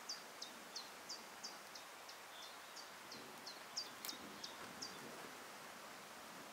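A small songbird singing a run of short, high, downward-slurred notes, about three a second, which stop about five seconds in, over a faint steady outdoor hiss. A single sharp click about four seconds in.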